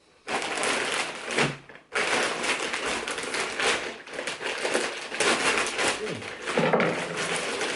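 Parcel packaging crinkling and rustling as it is cut and torn open with a knife, with a short pause a little under two seconds in.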